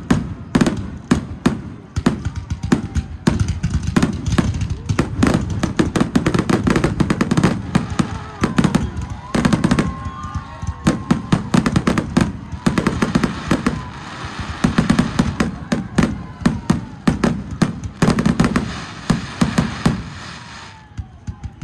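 Fireworks display: a dense, irregular barrage of bangs and crackles, several a second, with rumbling booms between, thinning out near the end.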